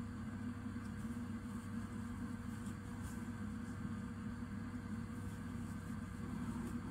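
Steady low electrical-sounding hum and room noise with a faint constant tone, no distinct events.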